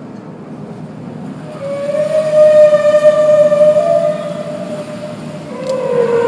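Humpback whale song played back on tape within the orchestral texture: a long moan held for about four seconds starting about a second and a half in, then a second call that slides downward near the end, over a low rumbling background.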